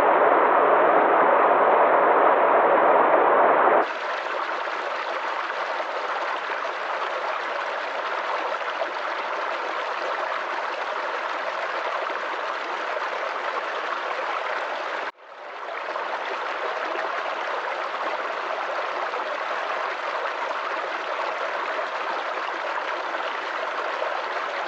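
River water flowing with a steady rush. About four seconds in it cuts abruptly to a quieter, brighter recording of the same kind, and about fifteen seconds in it drops out for a moment and fades back in.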